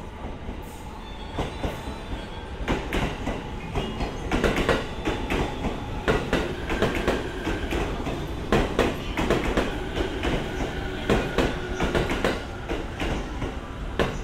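E231 series electric multiple unit, its wheels freshly reprofiled, running past the platform. Its wheels clack irregularly over rail joints, louder from about a second and a half in, with a thin squeal from the wheels now and then.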